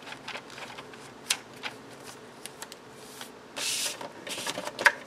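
Paper and cardstock being handled: rustling and small clicks as planner pages and a scrapbook-paper envelope are moved, a short sliding swish about three and a half seconds in, and a sharp click just before the end.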